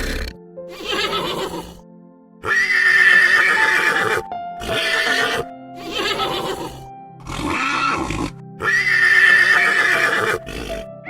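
A horse neighing over and over, a series of loud calls each lasting one to two seconds, over background music.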